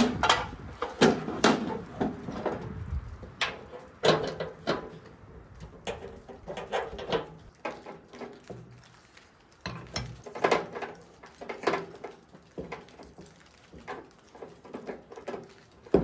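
Irregular knocks, clicks and clatter of a portable propane camp stove being set up on a picnic table: its cover handled, its hinged side panels folded up, and a propane canister fitted to its regulator near the end.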